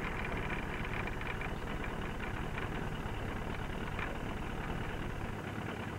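Boat's outboard motor idling steadily, a low even running with a fast regular pulse.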